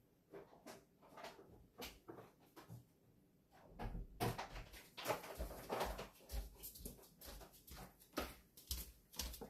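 Scattered light clicks and knocks of objects being handled. From about four seconds in they give way to denser rustling with dull low thumps.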